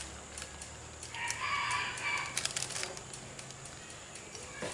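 A chicken calling once, lasting about a second, with soft clicks and crinkles of a plastic bag being handled.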